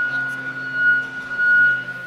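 Komatsu HD605-7 dump truck running: a steady high whine held at one pitch over a lower hum.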